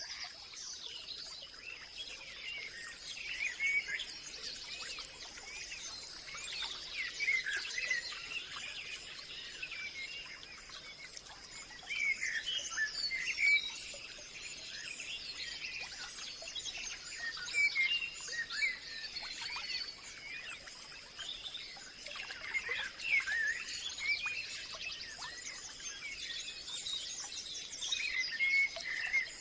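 Many songbirds chirping and calling, quick overlapping chirps and whistles, over a steady high-pitched whine.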